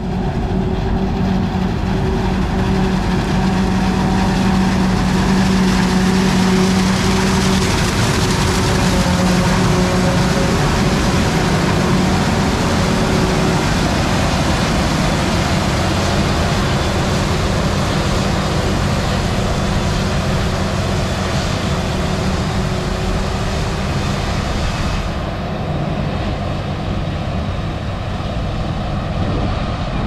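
Claas Jaguar self-propelled forage harvester running under load while chopping corn and blowing silage into a tractor-drawn wagon: a steady engine drone over a loud rushing of chopped crop. The sound turns duller and slightly quieter about five seconds before the end.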